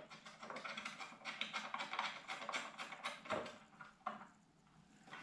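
Light, rapid clicks and taps of small hardware being handled as the Celestron StarSense camera is fitted onto its bracket and secured with its small locking screws, with a few sharper clicks near the end.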